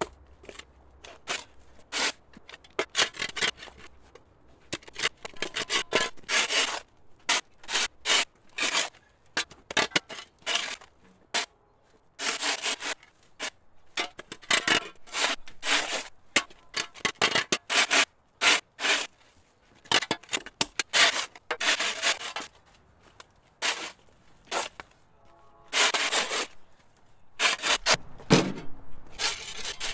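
A hand tool scraping and rubbing in irregular runs of quick strokes, several a second, with short pauses between runs.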